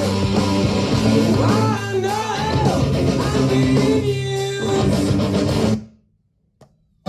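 A rock song with a singing voice and guitar playing through a Pioneer SX-680 stereo receiver and loudspeakers; it cuts off abruptly about six seconds in.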